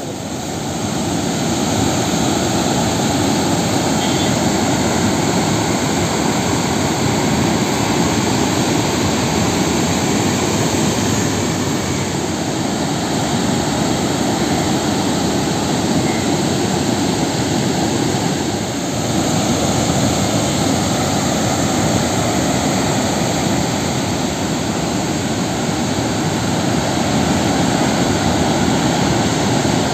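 Water released through Mettur dam's open spillway gates, rushing and crashing down a rocky channel: a steady, loud rush of water.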